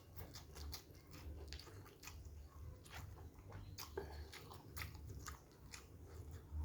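Close-up mouth sounds of a person chewing and biting chicken: soft, irregular smacks and clicks, one after another.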